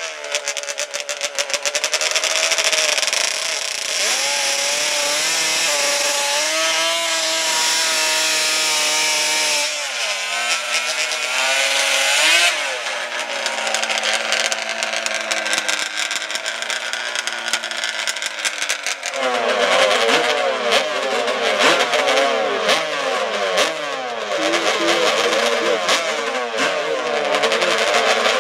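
Drag-racing ATV engines revving hard at the starting line: the pitch climbs and falls for the first ten seconds, settles lower and steadier, then from about two-thirds of the way through the engines are blipped up and down several times a second while staging.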